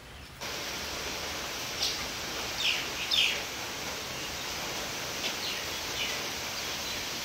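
Steady hiss of rain falling, with a bird giving a few short, falling chirps over it.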